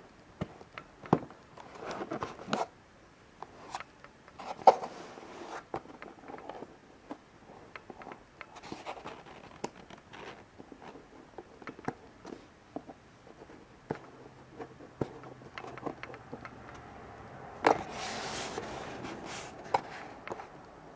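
Fingers handling a cardboard box and picking at its stick-on tape seal: scattered taps and clicks with short bouts of scraping and rustling, the longest about three-quarters of the way through.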